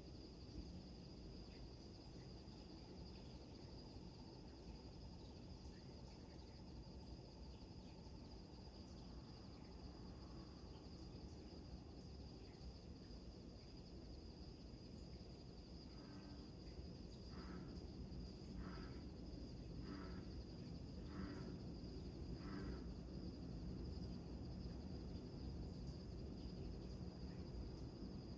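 Crickets trilling steadily over a low rumble of surf breaking on rocks. About halfway through, a bullfrog croaks five times, roughly a second apart.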